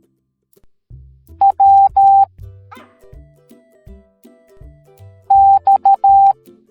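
Morse code sent as a single steady beep in two letter groups: dot-dash-dash (W), then a few seconds later dash-dot-dot-dash (X). Background music plays underneath.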